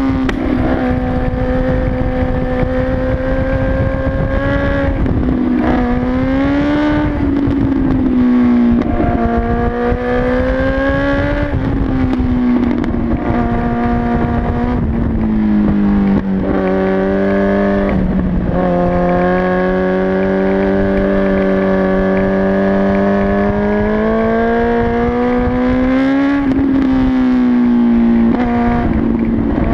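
Motorcycle engine under way, its note climbing and easing as the throttle changes, with about five brief breaks and jumps in pitch at gear changes. A steady rush of wind noise runs underneath.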